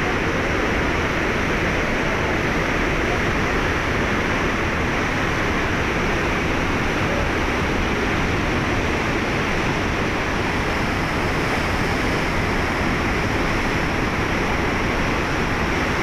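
Swollen, muddy Himalayan river in flood rushing through rapids: a loud, steady rush of churning white water.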